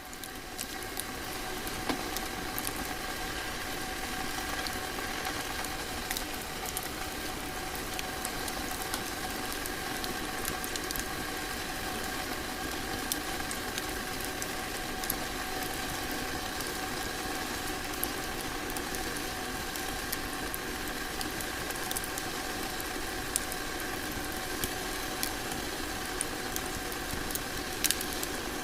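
Crackling fireplace fire: a steady hiss with scattered sharp pops, one louder pop near the end, over a faint steady hum.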